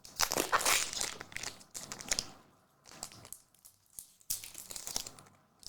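Plastic wrapper of a trading-card pack crinkling as it is torn open and handled, in a cluster of bursts over the first two seconds and again about four seconds in.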